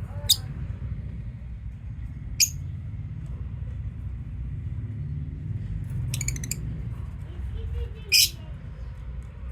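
Lovebirds calling: three short, shrill shrieks spread through, with a buzzy, rapidly pulsed chatter around six seconds in and a few soft chirps. A steady low rumble runs underneath.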